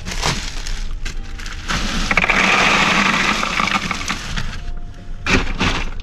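Bag of ice cubes being emptied into a hard plastic cooler: the cubes rattle and clatter for about two seconds, with sharp knocks from the ice and cooler shortly after the start and again near the end.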